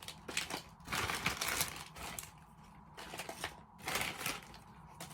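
Plastic packaging rustling and crinkling in uneven bursts, with small clicks, as items are pulled out of a parcel by hand.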